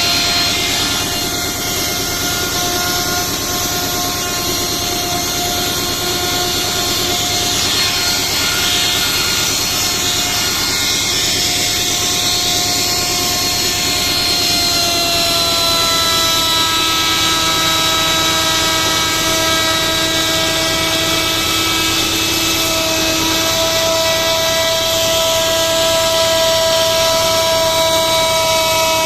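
An electric power tool running continuously, its motor giving a steady high whine over a rushing noise. The pitch drops slightly about halfway through, as if the tool is taking a load.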